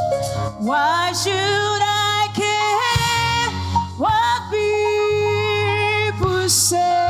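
Gospel choir singing long held notes that slide up into each phrase, over a steady keyboard and band accompaniment.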